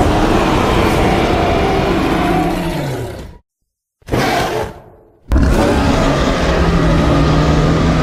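Creature roar sound effects, three in a row separated by abrupt silences: a long roar of about three seconds, a short one that fades away, then another long roar starting about five seconds in.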